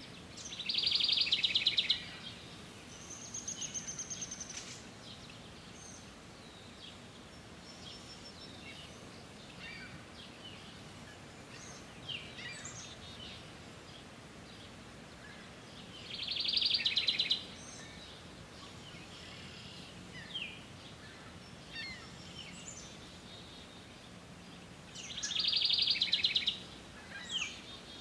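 House wren singing: three loud songs of rapid, fast-repeated notes, each about a second and a half long, near the start, about halfway through and shortly before the end. Fainter short calls and a high thin trill sound between the songs.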